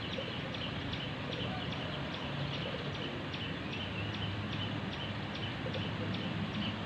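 Sparrows chirping in a quick, regular series of short high cheeps, about three a second, over a steady low rumble of background noise.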